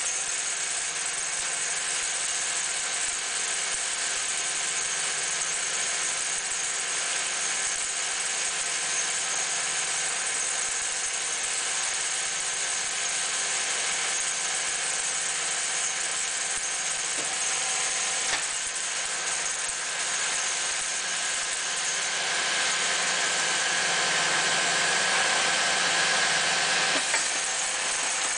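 Hardinge DSM-A automatic second-operation lathe running, its motor and spindle drive giving a steady mechanical hum with a light rattle and several constant tones. It grows a little louder in the last few seconds, with a click about two-thirds through and another near the end as the turret slide cycles.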